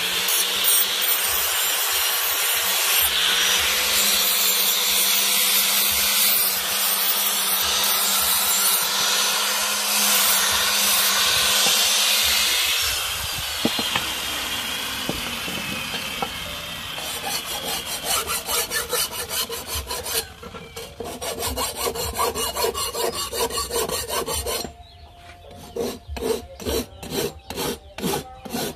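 Angle grinder grinding the edge of a steel cleaver, a loud steady grind over the motor's hum that stops about twelve seconds in. Then a hand file is drawn along the blade in rhythmic rasping strokes, about two to three a second near the end.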